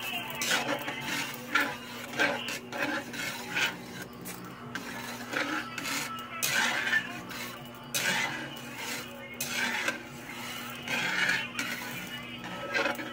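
Metal spatula scraping and stirring against the bottom of a metal wok of heated milk, in a run of irregular strokes.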